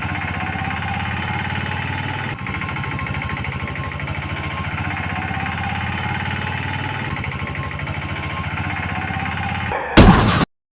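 An engine running steadily with a fast, even low throb. It ends in a loud burst about ten seconds in, then cuts off abruptly.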